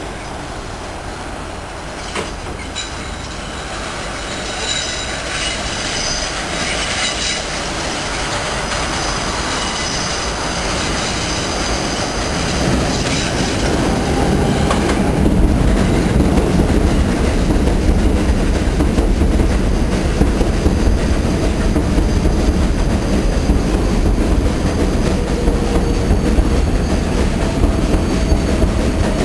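New York City Subway 6 train on an elevated curve, its steel wheels squealing at several high pitches as it approaches and growing louder. About halfway through, the clattering rumble of the cars over the elevated track takes over as the train pulls in alongside, with a faint whine that slowly falls in pitch as it slows.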